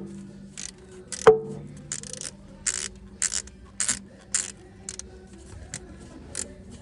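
A hand tool working a small bolt on an engine: one metallic clink with a short ring about a second in, then a run of short rasping strokes, roughly two a second.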